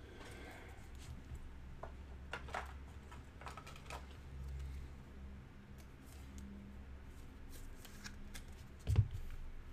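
Faint rustling and light clicks of a plastic card sleeve and a rigid top loader as a trading card is handled and slid into the holder, over a low steady hum. A single dull thump near the end.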